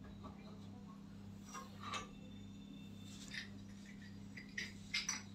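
Faint clinks and rubbing of metal gas-stove burner parts being handled, with a few sharper clinks near the end, over a steady low hum.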